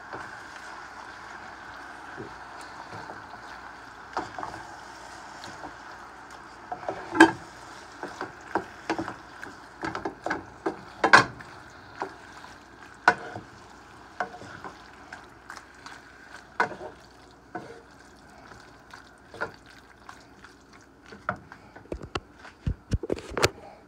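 Wooden spatula stirring a chunky tomato-sauce mixture in a frying pan, knocking and scraping against the pan at irregular intervals, over a faint steady hiss that fades after the first several seconds.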